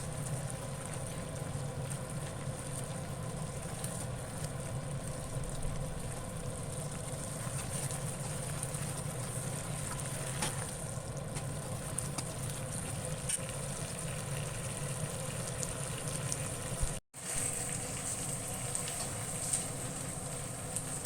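Potatoes and chicken sizzling in a frying pan over a steady hum, with occasional light clicks of a utensil. The sound drops out for an instant about seventeen seconds in.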